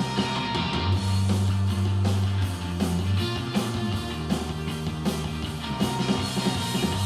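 Rock-pop song with guitar over long held bass notes, played through a portable Bluetooth speaker at high volume and recorded from about six feet away.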